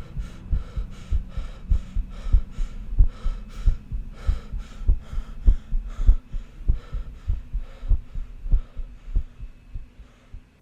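Heartbeat sound effect over a low hum, thumping about twice a second, then fading out near the end.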